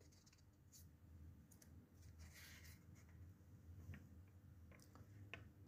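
Near silence: faint room tone with a low hum and a few soft, scattered clicks.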